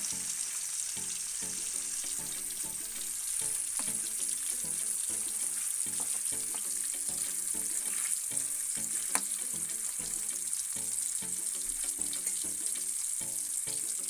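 Small fish deep-frying in hot coconut oil in an iron wok, with a steady high sizzle. A steel spoon clicks against the pan a few times.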